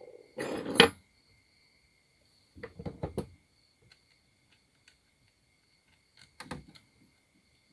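Metal clinks and rattles as the bar and chain of a grinder chainsaw adapter are handled and a small tool is fitted to the chain tensioner. They come in three short bursts, the first the loudest.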